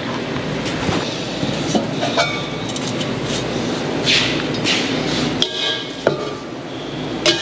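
Scattered metal clanks and knocks from a pipe and tools being handled, over a steady shop background noise.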